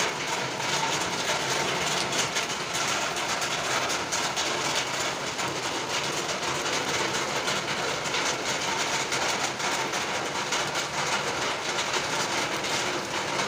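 Steady rain falling on a terrace garden of potted plants: an even hiss with many small drop ticks.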